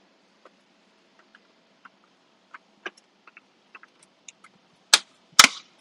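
Plastic dashboard trim panel of a Tesla Model 3 being pressed back into place: scattered faint ticks and taps, then two loud snaps near the end as its clips click home.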